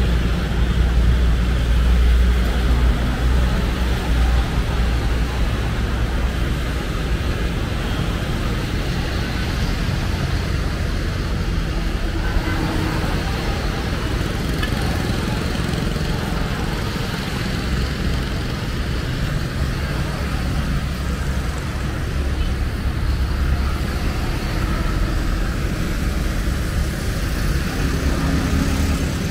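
Road traffic: car engines running and passing by, a steady low rumble that swells in the first few seconds and again about two-thirds of the way through.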